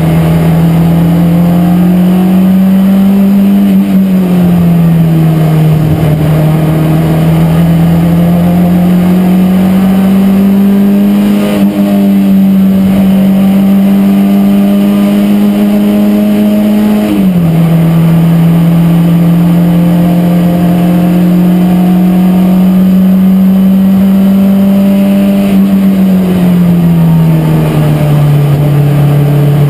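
Race car engine running hard, heard from inside the stripped-out cabin. The pitch climbs slowly under acceleration, drops sharply about seventeen seconds in at a gear change, and falls away more gradually a few seconds in and again near the end as the driver lifts.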